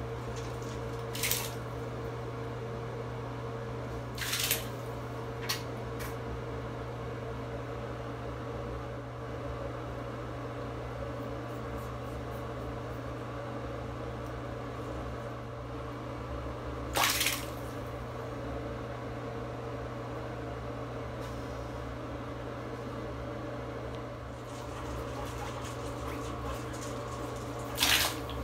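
Guinea pigs moving in shallow bathwater in a tub, making a few brief splashes over a steady low hum.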